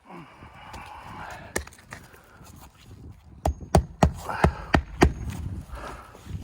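A hammer driving roofing nails into a replacement shingle: about six quick, sharp strikes in a steady rhythm, starting about three and a half seconds in. Before them there is faint rustling.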